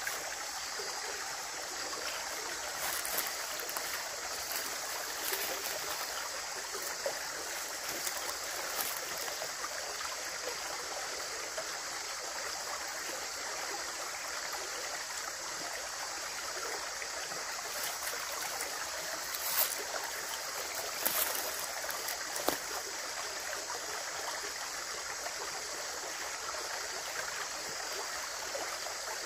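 Running water, a steady rushing and splashing, with a few brief louder splashes standing out, most of them a little past the middle.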